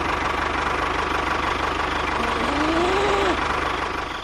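An engine running steadily with a fast even rhythm, with a brief whine that rises and then falls about two and a half seconds in.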